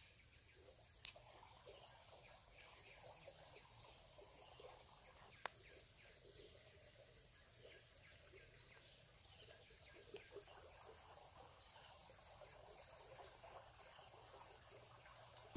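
Faint, steady high-pitched drone of insects, with a couple of faint sharp clicks about a second in and again near the middle.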